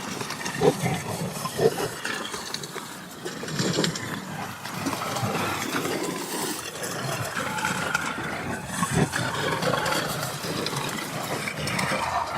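Sound-designed demon creature voice: growling and raspy whispering, with a few short growls in the first couple of seconds, then a continuous rough rasp.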